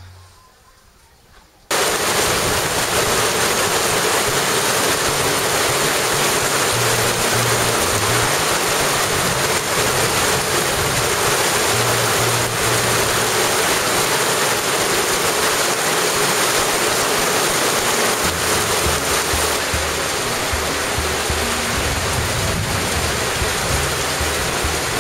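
Heavy rain pouring down, a loud steady hiss that starts abruptly about two seconds in.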